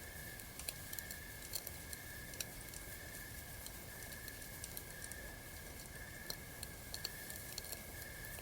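Campfire crackling: irregular sharp pops and snaps, a few every second, over a steady high chirring of night insects in the background.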